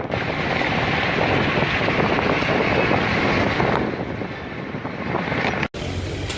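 Strong wind rushing and buffeting the microphone during a dust storm, a loud steady roar of noise. It cuts out for an instant near the end and picks up again.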